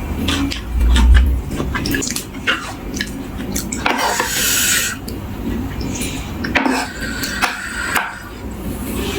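Eating sounds: a spoon or fork clicking against a dish and crunchy chewing of crisp fresh vegetables and papaya salad, with a heavy low thump about a second in.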